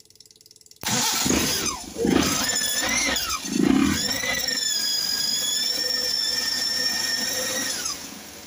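Suzuki Carry 1.0 engine cranked and started by touching the starter wire directly through a makeshift wiring bypass. It starts suddenly about a second in and runs loudly with a high-pitched squeal that wavers in pitch early on, then steadies, until the noise drops away shortly before the end.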